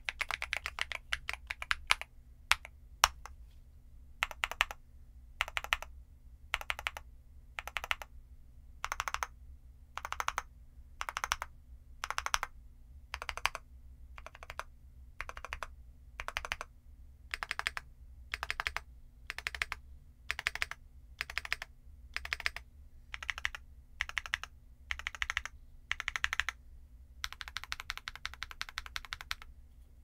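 Keystrokes on an MMStudio Class80R2 mechanical keyboard fitted with Gateron EF Grayish tactile switches and WUKDS 1970 KDA-profile PBT keycaps. Fast typing for the first couple of seconds gives way to separate key presses about once or twice a second, and a quick run of typing returns about three seconds before the end.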